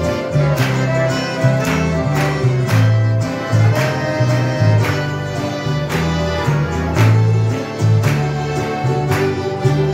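Live church string band playing a hymn tune: strummed guitars keeping a steady rhythm over a stepping bass line.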